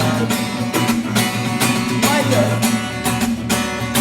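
Music: acoustic guitar strumming and plucking chords in a steady rhythm.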